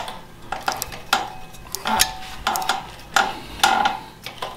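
Repeated sharp metallic clinks, some with a brief ring, as pliers work the spindle nut on a Mustang II front hub and drilled, slotted brake rotor.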